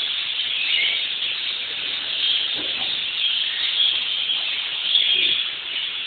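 Many small birds chirping and chattering at once in a continuous high-pitched din.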